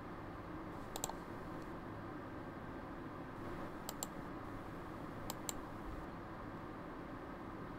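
Computer mouse button clicks: three quick click pairs, each a press and release, about one second in, about four seconds in, and around five and a half seconds in, over a faint steady room hum.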